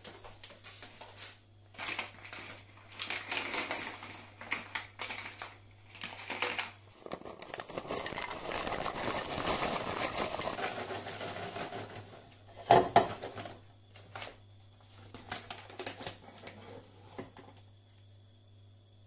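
Paper microwave-popcorn bag crinkling and rustling as it is handled and torn open, then popped popcorn rustling and pattering as it is poured into a plastic bowl for several seconds. A single sharp knock about two-thirds of the way through, then light scattered clicks over a low steady hum.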